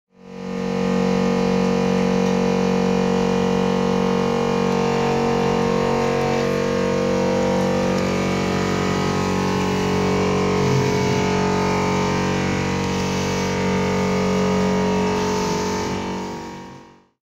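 Pipeline pigging demonstrator's pump motor running: a steady mechanical hum with several held tones as the pig is driven along the clear pipe. It fades in at the start and out near the end.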